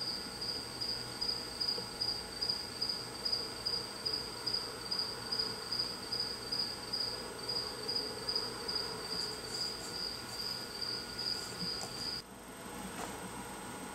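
A cricket chirping, a high pulsing trill about three times a second, which cuts off suddenly near the end.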